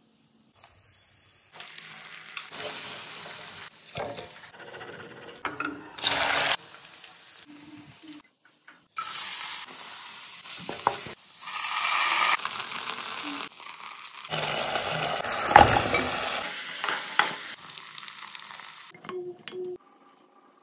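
Food sizzling and frying in hot oil in a frying pan, with stirring, as chopped garlic goes into the pan. It comes as a series of short clips that start and stop abruptly.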